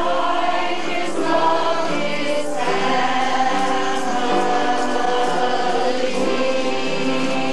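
A mixed group of nuns, elderly women and young children singing together as a choir, holding long notes.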